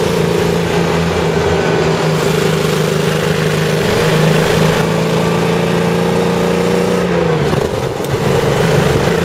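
Jaguar J60 4.2-litre straight-six petrol engine of a CVR(T) Striker running at raised revs, then the revs falling about seven seconds in. The engine is misfiring badly because of a stuck valve.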